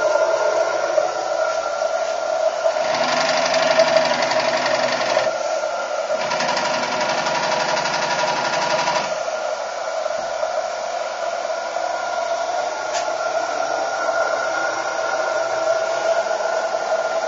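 A model boat's drive, running in two spells of a few seconds each, about three and six seconds in, as a fast, even mechanical chatter. These spells sit over a steady whirring hum.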